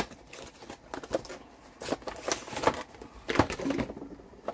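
Cardboard fan box being opened by hand, its inner packaging slid out and a clear plastic tray set down on a wooden bench. This gives a string of short scrapes, rustles and clicks, some louder knocks about two and three and a half seconds in.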